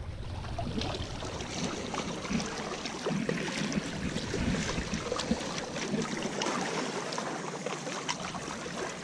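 Small lake waves lapping and splashing against shoreline rocks, with many small irregular splashes.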